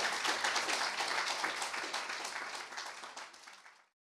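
Audience applauding, fading out to silence near the end.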